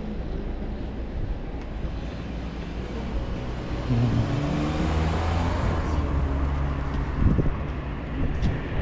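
Street traffic: a motor vehicle passes close by about halfway through, its low engine hum and tyre noise swelling and then fading.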